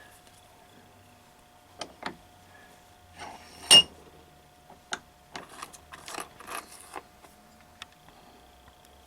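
Metal tools and parts clicking and clinking while the shifter linkage is worked on. There is one loud, ringing metallic clink about four seconds in, followed by a flurry of small rattles.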